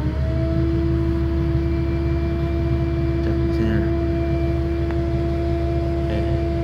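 Steady low engine and road rumble inside a moving passenger vehicle, with a whine that rises at the very start and then holds one steady pitch.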